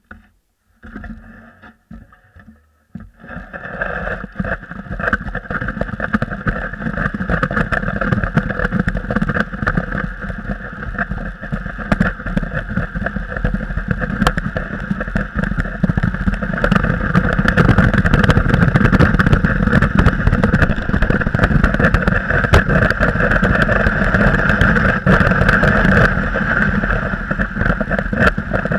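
Sled sliding down a snowy slope: a steady scraping rush of the runners on packed snow, growing louder over the first fifteen seconds or so and then holding. A few knocks and short gaps come in the first three seconds as the ride starts.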